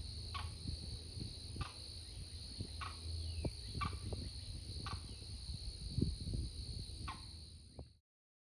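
A steady high insect drone, with a bird giving about six short falling calls roughly once a second over it, and low thumps of footsteps on the trail underneath. Everything cuts off abruptly near the end.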